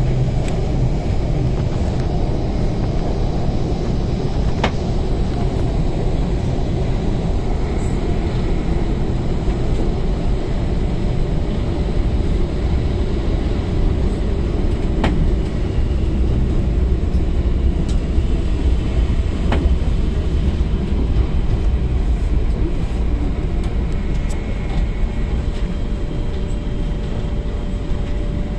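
Interior of an MTR K-train, a Hyundai Rotem electric multiple unit, running through a tunnel: a steady heavy rumble of wheels on rail, broken by a few sharp clicks. A faint steady whine comes in near the end as the train nears the next station.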